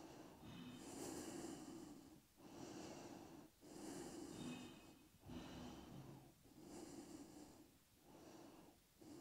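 A woman's faint, relaxed natural breathing, soft breaths in and out about a second each in an even rhythm with short pauses between.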